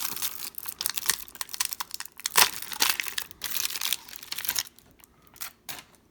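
Plastic trading-card pack wrapper crinkling and tearing as a jumbo pack is opened by hand. There is dense crackling for the first four seconds or so, then a few scattered crinkles that die away.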